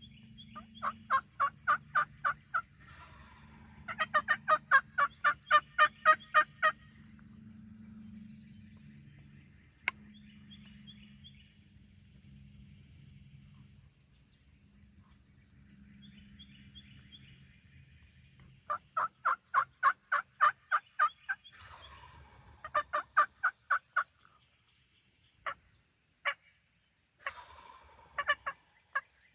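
Turkey calling: loud runs of rapid, evenly spaced notes, each lasting two to three seconds, about a second in, at four seconds and again near twenty seconds. A few single notes come near the end.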